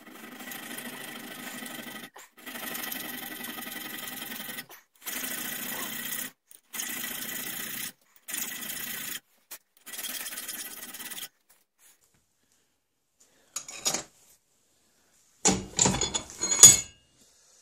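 Hand file rasping on a small steel rear sight clamped in a bench vise, in six long spells of back-and-forth strokes over the first eleven seconds, slimming the sight's shape. Near the end, a few sharp metallic clicks and knocks as the vise is worked and the part handled.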